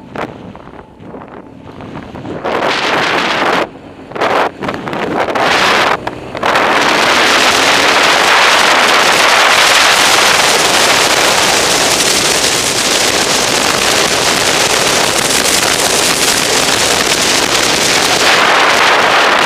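Wind buffeting the microphone of a camera on a moving motorcycle: gusty and broken for the first few seconds, then a steady, loud wind rush from about six seconds in as the bike picks up speed. The BMW R1200GS's boxer-twin engine runs under it.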